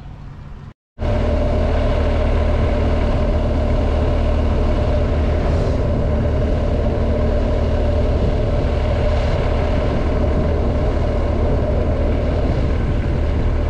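Motorcycle running at a steady speed, its engine note holding constant with no revving. The sound starts abruptly about a second in, after a moment of silence.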